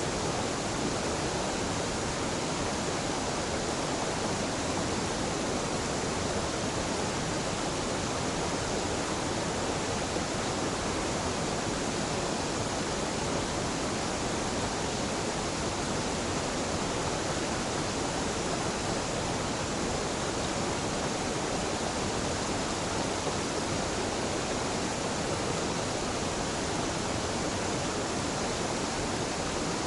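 Waterfall on a mountain stream: falling water rushing in a steady, unbroken wash with no change in level.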